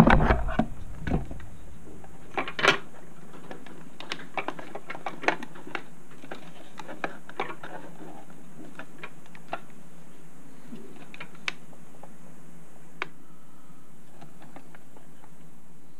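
A loud knock and rumble in the first second, as the camera is bumped, then scattered light clicks and taps as a laptop adapter's circuit board and cable are handled, over a steady low hiss.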